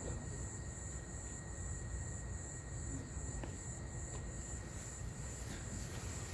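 Crickets chirping in a steady, even pulse, over a low outdoor rumble.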